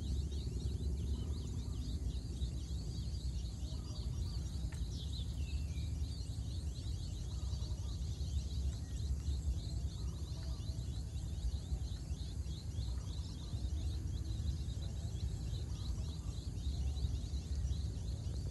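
Rural morning ambience: many small birds chirping rapidly and high over a steady low rumble.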